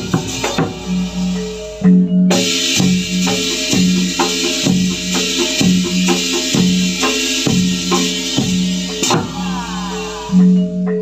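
Dongkrek accompaniment music: drums and other percussion beating a steady repeating pattern, with low held tones sounding again and again and a short break about two seconds in.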